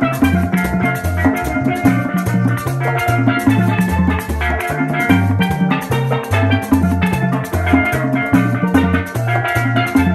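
Instrumental tropical dance music: a syncopated bass line and percussion over a steady beat, with bright pitched melody instruments and no singing.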